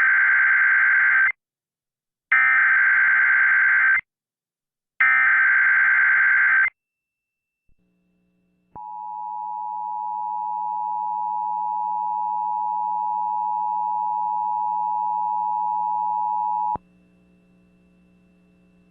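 Emergency Alert System signal: three short screechy bursts of digital SAME header data tones about a second apart, then the steady two-tone EAS attention signal held for about eight seconds before it cuts off suddenly, leaving a faint hum. It marks the start of a broadcast Amber child abduction alert.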